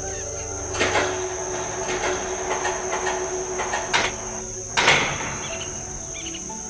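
Rusty iron sliding bolt on a metal gate worked back and forth by hand: metal scraping and rattling with sharp clanks, the loudest about five seconds in.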